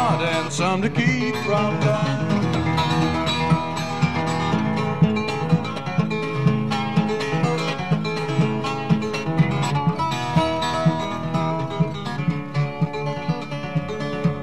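Solo acoustic guitar playing an instrumental passage: quick picked notes over a steady, ringing bass line.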